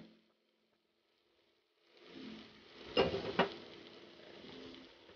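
Diced peppers and tomato frying in a teaspoon of oil in a pan, a faint steady sizzle that starts about two seconds in. Two light knocks of a kitchen utensil come about half a second apart near the middle.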